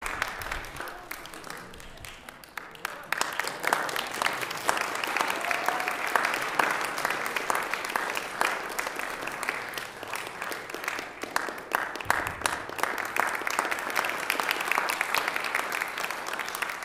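Audience applauding, a steady patter of many hands clapping that swells about three seconds in.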